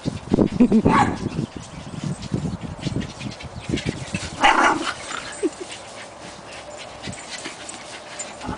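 Two small dogs, a schipperke among them, play-chasing on grass, with short dog calls. The loudest come about a second in and again about halfway through.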